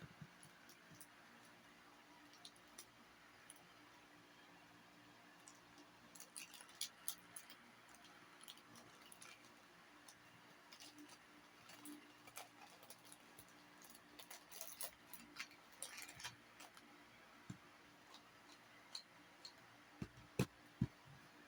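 Faint handling noises of a Rubik's cube package being opened: scattered small clicks and rustles, with a few sharper knocks near the end.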